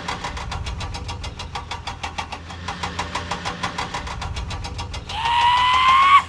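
Cartoon vehicle engine sound effect: an even, rapid clatter of about eight beats a second over a low hum. About five seconds in, a loud held tone, rising slightly in pitch, comes in over it.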